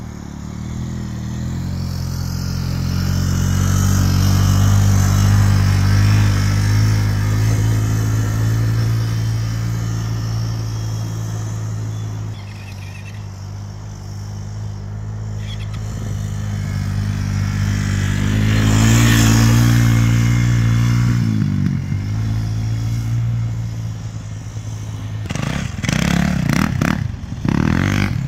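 Small off-road engines, an ATV and a dirt bike, running as they circle a sand track, the engine note swelling twice as riders come close and fading between. Rough, choppy noise joins it near the end.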